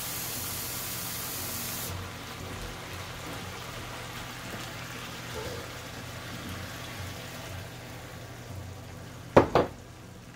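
A kitchen tap runs for about two seconds and shuts off. Seasoned ground beef then sizzles steadily in a skillet as a measuring cup of water is poured in. Near the end a wooden spoon knocks sharply on the pan twice.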